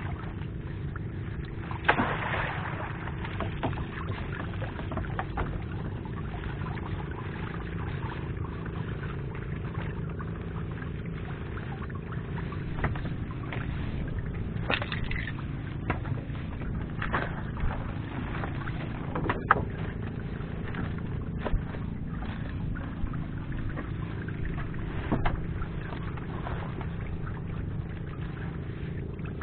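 Steady drone of a small fishing boat's engine running, with occasional knocks and splashes of water, the sharpest about two seconds in and near twenty seconds.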